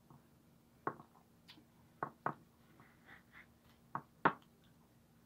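Metal cutlery knocking against a plate while watermelon is cut up and picked off it: about five short, sharp knocks, two close pairs around two and four seconds in, the last the loudest, with fainter ticks between.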